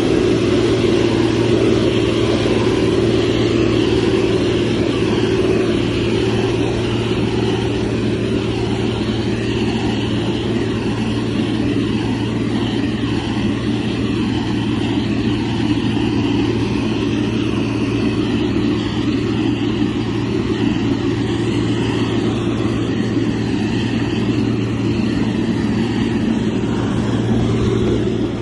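Heavy construction machine's diesel engine running steadily under work, with a deep, even hum.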